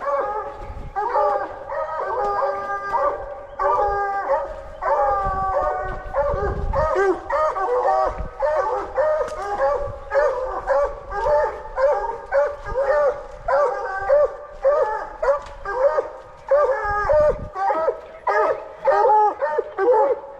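Coonhounds barking treed: repeated drawn-out bawls and chop barks, about one to two a second, with two dogs' voices overlapping at times.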